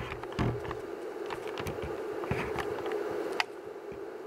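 Steady electrical buzz from a transformer feeding a rectifier into a just-connected capacitor bank. A few sharp clicks of handling sound over it, the loudest about three and a half seconds in.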